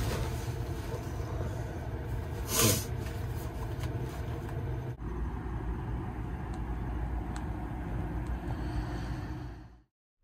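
Steady low rumbling hum with one brief rustle about two and a half seconds in; the hum changes in tone about halfway through and the sound cuts out just before the end.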